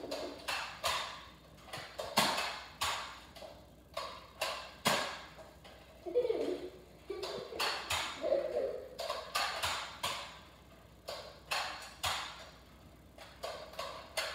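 Toy foam-dart blaster being fired over and over: irregular sharp clacks, at times a few a second, some with a brief ring after.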